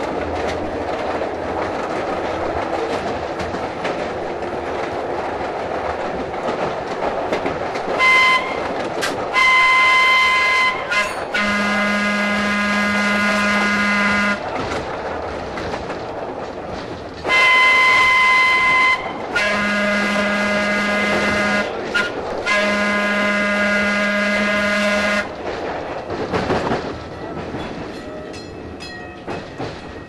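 Pacific Electric interurban car's air whistle sounded in six blasts over the steady rumble of the car running on the rails. The first blast is short and the rest are long, in two groups of three, as the car whistles for a grade crossing. A few rail-joint clicks follow near the end.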